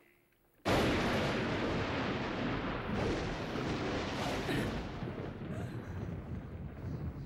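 A sudden loud thunderclap about a second in, rolling on as a long, heavy rumble.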